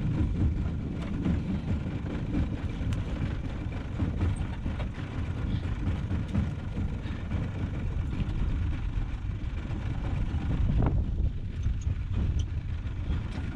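Low, gusting rumble of wind buffeting the microphone, with a few faint clicks and rustles from mangrove branches being handled.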